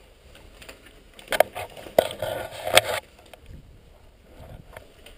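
Footsteps crunching and scraping over broken concrete and rubble on a derelict floor, with sharp clicks and a louder stretch of grinding debris for about a second and a half midway.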